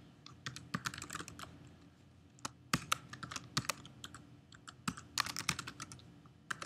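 Typing on a computer keyboard: irregular runs of quick keystrokes with short pauses between them.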